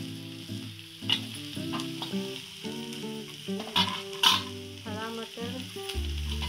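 Vegetables sizzling in hot oil in a kadhai as grated carrot and green peas are tipped in and stirred, with a few sharp scrapes of a metal spoon on the pan about a second in and around four seconds.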